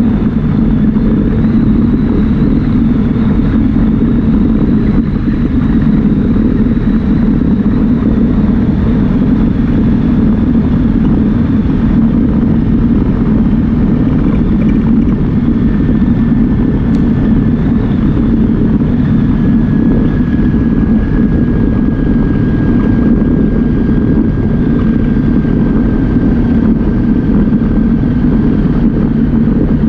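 Yamaha Viking side-by-side's single-cylinder engine running steadily while the vehicle drives along, with a faint high whine coming in about halfway through.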